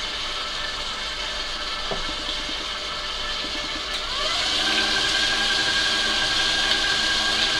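Electric stand mixer running at low speed, its beater working creamed butter and sugar as eggs go in; about four seconds in, the motor is turned up, its whine rising in pitch and getting louder, then holding steady at the higher speed.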